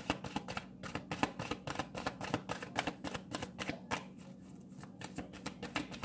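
A deck of cards being shuffled by hand: a quick run of crisp card-on-card flicks and slaps, easing off briefly a little past four seconds in, then resuming.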